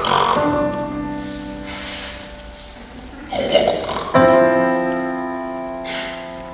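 Piano chords struck and left to ring out, one at the start and another about four seconds in, with a man's short wordless cries between them.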